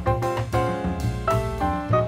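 Background music: a jazzy instrumental with piano over a steady drum beat.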